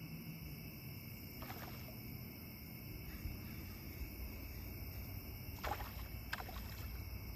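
Steady high-pitched insect chorus from the riverbank, with a few short splashes of water about a second and a half in and twice near the six-second mark while a hooked smallmouth bass is being fought from a kayak.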